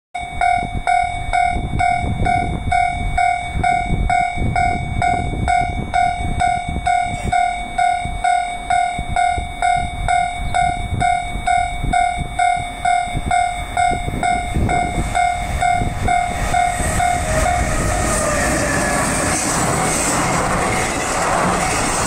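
Japanese level-crossing warning bell ringing, an electronic ding repeating a little over twice a second. About seventeen seconds in, a JR Freight container train hauled by an EH500 electric locomotive rushes through the crossing at high speed, and the steady roar of wheels and wagons swamps the bell.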